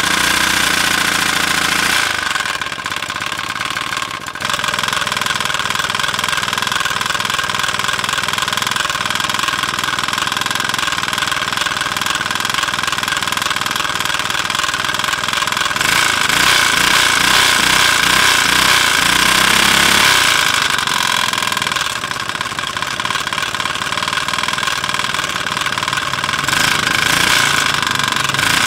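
Small gasoline engine of a restored portable water pump running freshly after starting, its speed rising and falling a few times, louder for a few seconds past the middle, dropping back, and picking up again near the end.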